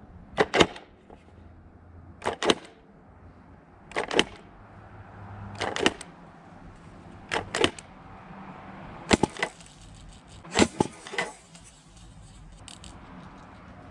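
Airsoft revolver grenade launcher working through its loaded shells: a series of about eight sharp cracks, many doubled, roughly one every one and a half to two seconds.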